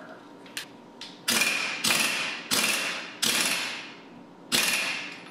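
Porter-Cable pneumatic impact wrench hammering in five short bursts of about half a second each, run on the nut at the end of a ball screw to tighten the bearing assembly back up.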